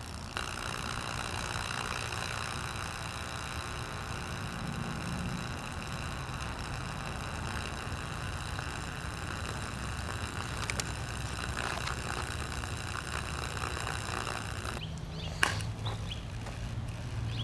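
The electric motor of a jammed Windmere table fan buzzing steadily, held from turning. The buzz drops off about 15 s in, leaving a lower hum, and a single sharp snap follows shortly after.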